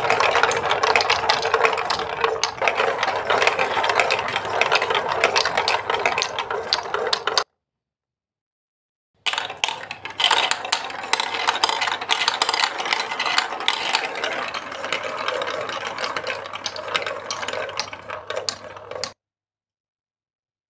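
Plastic balls rolling and clattering down a plastic building-block marble run, a dense, continuous rattle of many small clicks. It cuts to silence for about two seconds a third of the way in, starts again as more balls are dropped in, and stops suddenly shortly before the end.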